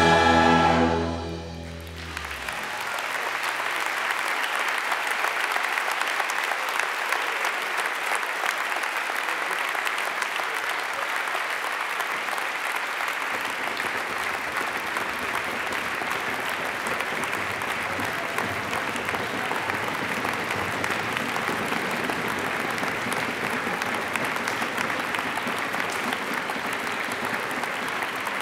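A held musical chord fades out in the first two seconds, then an audience applauds steadily for the rest of the time.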